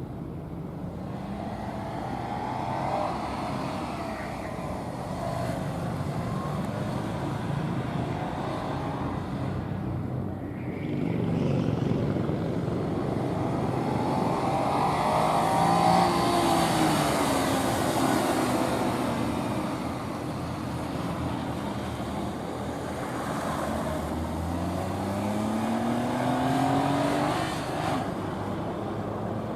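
A car's engine being driven hard around a gymkhana course, revving up and easing off repeatedly as it accelerates and brakes between turns. It is loudest about halfway through, with a clear rising rev near the end.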